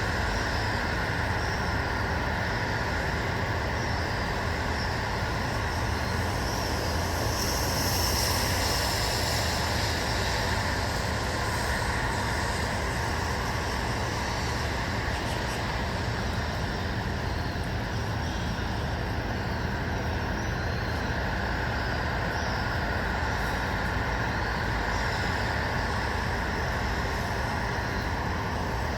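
Steady, even rush of distant road traffic with no pauses, and a few faint high chirps now and then.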